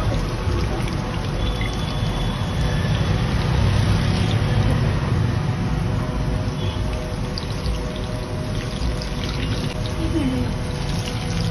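Momos deep-frying in a wok of hot oil: a steady sizzle with scattered small crackles over a low, even rumble.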